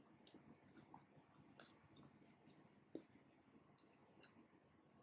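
Faint, scattered wet clicks and ticks of fingers picking through egusi soup on a plate, irregular and soft, with one slightly stronger tick about three seconds in.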